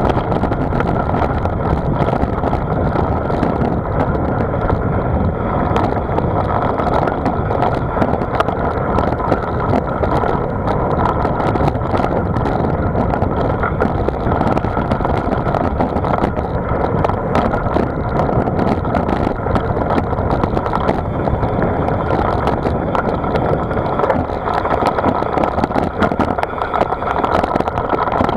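Steady rushing of wind and road noise from a moving vehicle, with a continuous engine-like drone.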